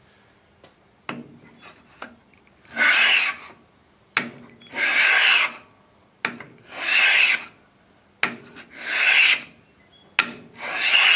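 HNT Gordon wooden block plane taking shavings from a board: five strokes about two seconds apart, each a rasping hiss just under a second long, preceded by a light knock.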